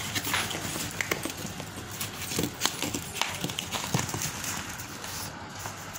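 Plastic packing wrap and cardboard crackling and rustling as a package is cut and pulled open, in irregular clicks and crinkles.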